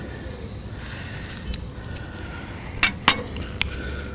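Kitchen knife clinking on a wooden cutting board as a roast is sliced and the knife is put down: two sharp clinks close together about three seconds in, then a lighter one.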